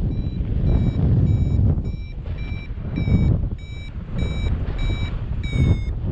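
Paragliding variometer beeping its climb tone, short steady-pitched beeps about two to three a second, the sign that the glider is rising in a thermal. Wind noise on the microphone rushes underneath in gusts.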